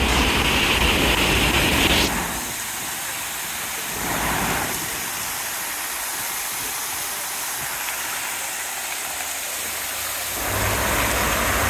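Fountain jets splashing into a pool: a steady rush of falling water. It drops quieter about two seconds in and grows louder again near the end.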